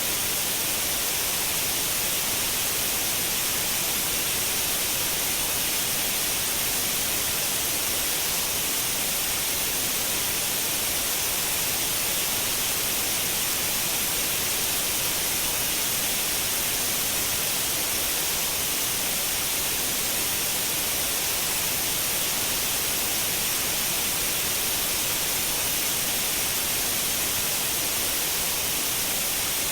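Continuous white noise: a steady, even hiss, strongest in the high end, with no change in level.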